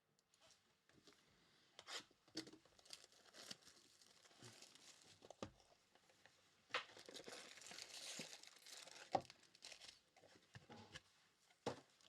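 Faint crinkling and tearing of a sealed trading-card box's wrapping and card pack being opened by hand, with scattered small clicks and a longer stretch of rustling about seven to nine seconds in.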